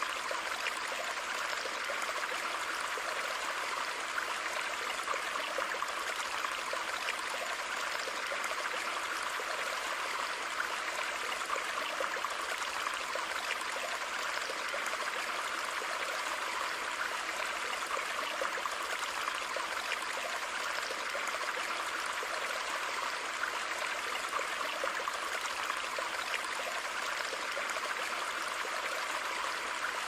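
Water running steadily in a garden koi pond, an even, unbroken rush of moving water with no changes or pauses.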